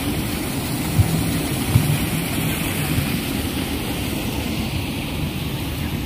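Spring water rushing and splashing over mossy rocks in a steady churning flow, with two brief soft knocks, one about a second in and one just under two seconds in.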